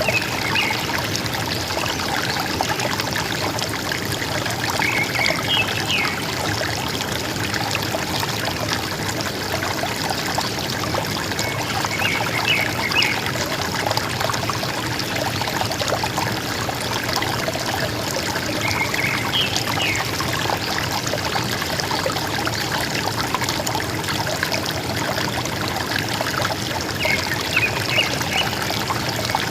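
River water flowing and gurgling steadily, with a forest bird giving a short high chirping phrase five times, every six or seven seconds.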